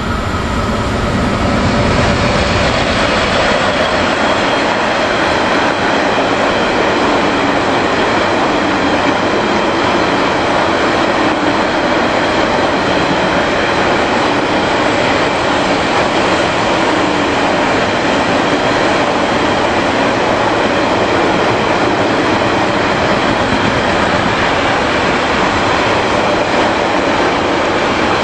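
Freight train of enclosed double-deck car-transporter wagons rolling past at speed: a steady rolling noise of steel wheels on the rails, building over the first two seconds and then holding even.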